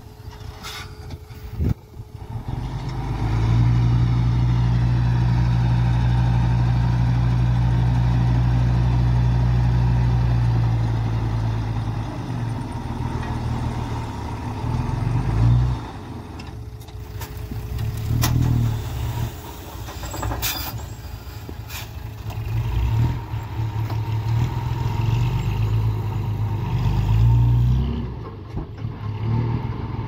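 Dump truck's diesel engine held at high, steady revs for several seconds while the hydraulic hoist raises the tipper bed to dump a load of soil, then running with irregular revving as the load slides off and the truck moves off. A few short, sharp knocks and hisses come from the truck along the way.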